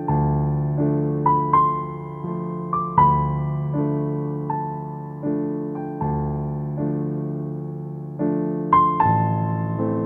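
Slow, gentle piano music: chords and single melody notes struck about every three-quarters of a second and left to ring and fade.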